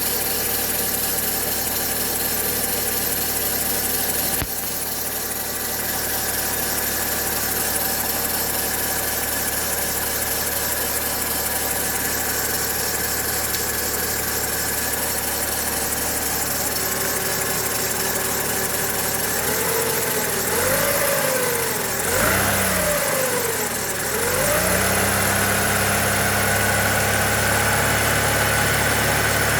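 Car engine running with a thin whistle from the timing-belt and alternator-belt side. About twenty seconds in the engine is revved up and down three times, then held at a raised speed, with the whistle still there.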